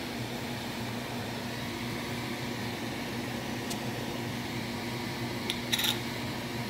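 Steady low hum of a motor-driven kitchen appliance, with a short clatter about five and a half seconds in.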